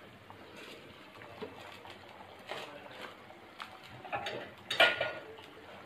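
A few short knocks and clinks of a bowl and spoon against an aluminium cooking pot, the loudest just before five seconds in, over the faint bubbling of boiling stock.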